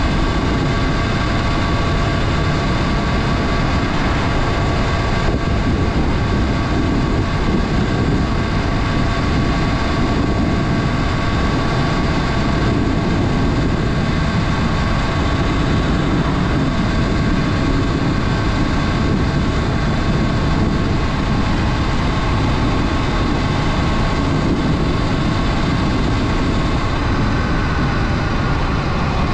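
Sur Ron Light Bee electric dirt bike running at a steady speed, its motor giving a steady whine of several high tones over heavy wind rumble on the microphone. The whine dips slightly in pitch near the end.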